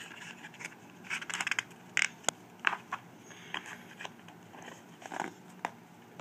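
Small objects being handled on a tabletop: scattered light clicks and taps, with a short crinkly rustle about a second in.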